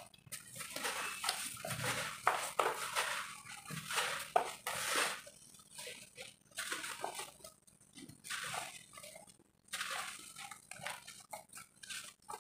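Hands crumbling clumps of roasted dirt, the dry dust pouring and pattering down onto a heap: a run of soft crumbling rustles that stop and start.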